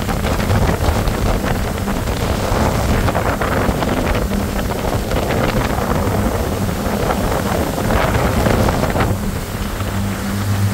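Motor cruiser's Volvo Penta engine running steadily under way, a low even hum, with wind buffeting the microphone and water rushing past the hull. The wind and rush grow louder through the middle and partly cover the engine, which stands out again near the end.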